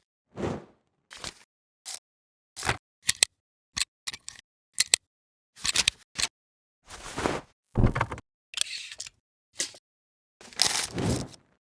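Vintage film and camera sound effects: a string of separate mechanical clicks and clacks and brief noisy bursts, each cut off into dead silence, with two longer rushing bursts, one about seven seconds in and one near the end.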